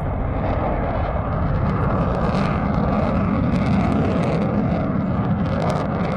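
Jet noise from a Sukhoi Su-30SM fighter's twin turbofan engines as it flies past overhead, a steady rushing roar that swells a little in the middle and eases off toward the end.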